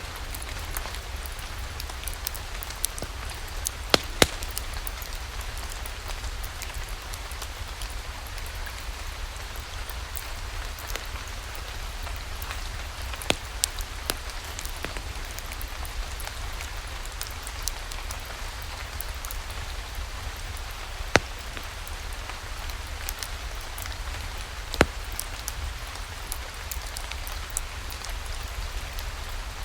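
Steady rainfall hissing, over a low rumble, with a handful of sharp pops and crackles from a wood fire scattered through it.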